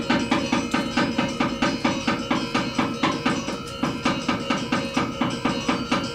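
Balinese shadow-puppet accompaniment music: fast, even percussive strikes, about five a second, over steady ringing metallic tones, in the manner of gamelan.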